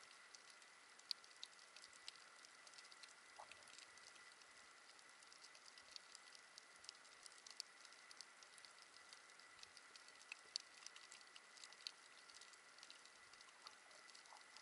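Faint underwater reef crackle: many small irregular clicks, the sound of snapping shrimp on a coral reef, heard through the camera's underwater housing. A thin steady high tone runs beneath it.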